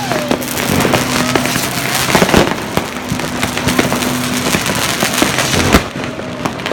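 Fireworks and firecrackers going off in quick succession: a dense run of sharp bangs and crackling, with a whistle falling in pitch at the start and a few louder bangs among them.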